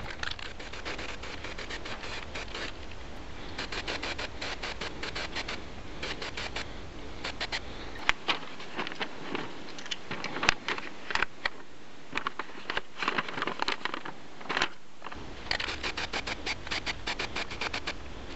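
Aerosol spray-paint can spraying in several runs, a rapid sputtering hiss. In the middle the spraying mostly stops and a sheet of paper rustles and crinkles, with a few sharp crackles.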